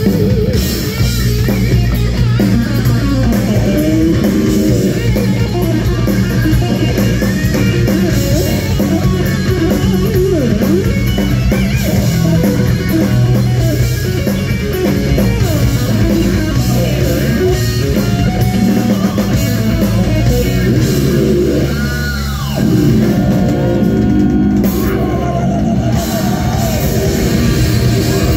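Live hard rock band playing loud, with electric guitar to the fore over bass and drum kit; the guitar lines bend in pitch, and the band briefly drops back about three-quarters of the way through.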